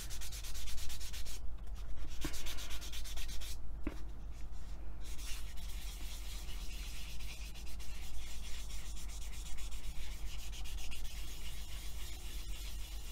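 A sanding pad rubbed in quick back-and-forth strokes over a cured polymer clay (Cernit Pearl) piece, with short pauses about one and a half and four seconds in. This is the final pad of the sanding sequence, smoothing the surface before buffing.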